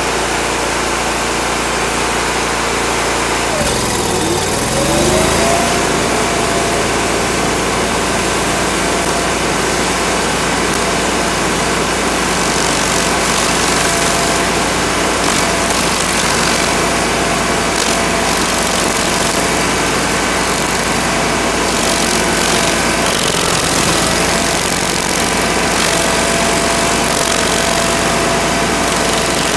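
Toro STX-38 stump grinder running at full throttle, its toothed cutting wheel spinning and grinding into a small tree stump. About four seconds in, the pitch dips and climbs back to a steady whine.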